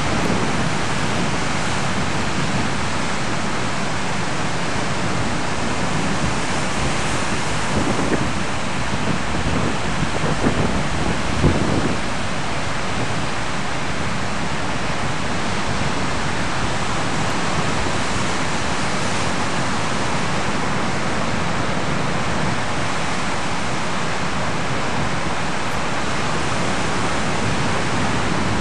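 Pacific surf breaking and washing up a sandy beach: a steady, continuous rush of noise, with a few brief louder low swells about a third of the way in.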